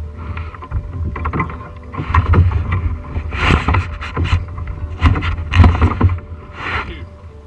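Water lapping and slapping against a plastic kayak hull in uneven surges, over steady low wind noise on the microphone.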